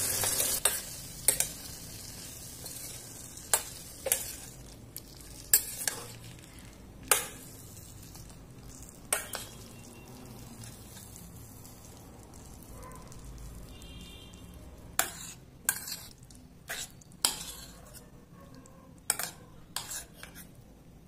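Metal spoon stirring egg and potato curry in a stainless steel pan, clinking sharply against the pan at irregular intervals over a faint sizzle of the simmering gravy. The sizzle is louder in the first second and drops away.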